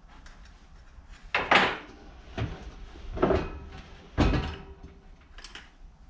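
Bicycle wheel and loose hub axle being handled: about five knocks and clunks roughly a second apart, with a short metallic ring after the fourth. The loudest come near the middle.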